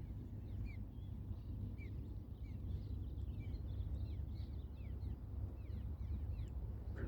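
Many small birds chirping as they fly about catching insects: short, quick downward-sliding chirps coming thick and fast, over a steady low rumble.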